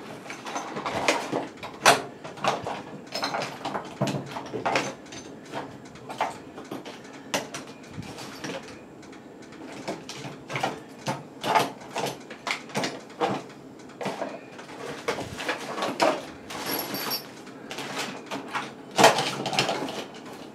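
Rummaging through a drawer of loose hardware: irregular clattering, clinks and knocks of small metal parts being pushed about, with a louder clatter near the end.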